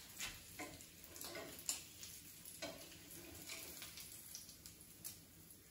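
Bacon sizzling faintly in a pan, with a slotted spatula scraping and clicking against the pan at irregular moments as the strips are lifted out.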